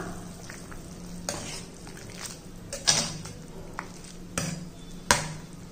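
A spoon stirring cooked vegetables in a pot of broth, with a few short knocks and scrapes of the spoon against the pot.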